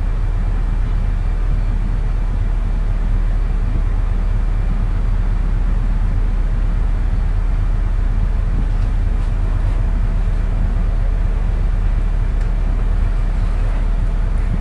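Steady low rumble with a hiss over it, unchanging throughout, with a few faint clicks in the second half.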